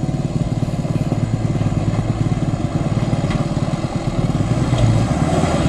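Diesel engine of a Mitsubishi Fuso Canter light truck running steadily under load as the truck pulls up a rough stony track, with a fast, even engine beat that grows a little louder as the truck comes closer.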